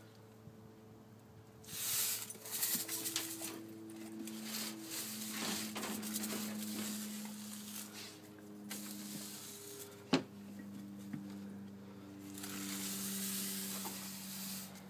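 Stiff push broom bristles scraping and sweeping over paving slabs in irregular bursts, with one sharp knock about ten seconds in. A faint low hum runs underneath.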